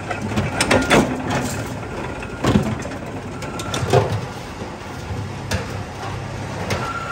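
Metal workshop sounds: a handful of irregular knocks and clatters, spaced a second or more apart, over a steady low machine hum.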